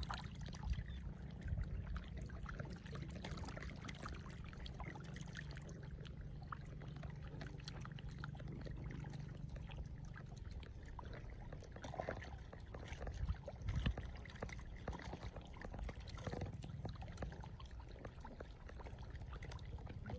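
Water trickling and splashing in a shallow field stream running high after rain, with a steady low rumble underneath and scattered small splashes, a few louder ones near the middle.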